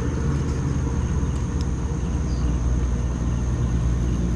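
A steady low rumble fills the sound, with a constant high-pitched insect trill, as of crickets, running above it.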